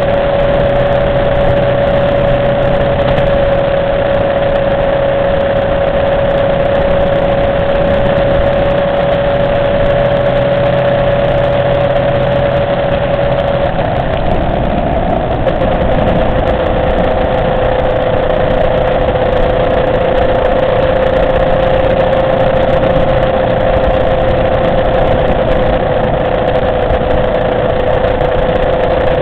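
Motorcycle engine running at a steady cruise, with a constant rush of wind and road noise. The engine note drops slightly about halfway through and holds a little lower afterwards.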